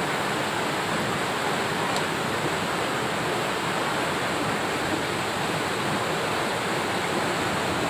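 Steady, even rushing of water, heavy rain or fast-flowing floodwater, with no distinct events.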